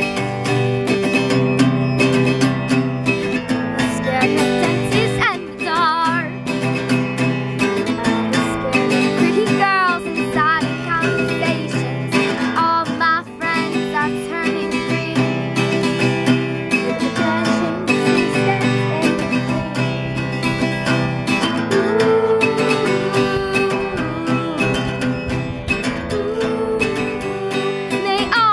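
A girl singing to a strummed acoustic guitar, an unaccompanied pop-song cover.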